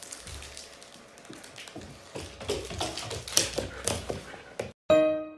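A dog's claws clicking and scrabbling on a hard wooden floor in quick, irregular taps. Just before the end the sound cuts out briefly and a tinkling piano music jingle begins.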